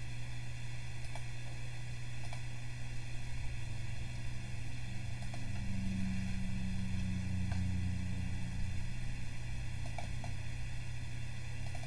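Steady low hum that grows louder for a few seconds in the middle, with a few faint, scattered computer mouse clicks.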